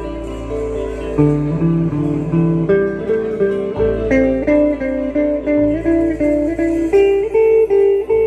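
Instrumental song passage: a plucked guitar melody of held, stepping notes over a low bass line.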